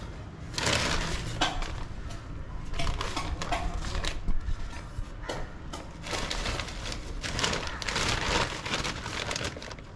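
Plastic bag of potting soil crinkling and rustling as a hand digs soil out of it, in several bursts.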